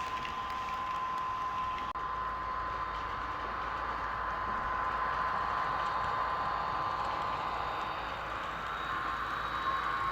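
Model passenger train running on the layout: a Soundtraxx Tsunami 2 sound decoder's diesel locomotive sound over the rolling of the model's wheels on track, with a steady high whine that rises slightly near the end.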